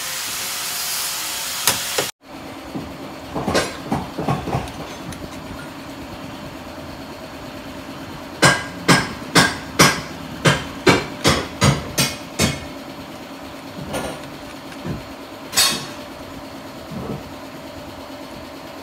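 Hammer blows during boat steering assembly: a few lighter knocks, then a run of about ten sharp, loud blows at roughly two to three a second, and one more blow a few seconds later. A power tool runs noisily for the first two seconds, then cuts off.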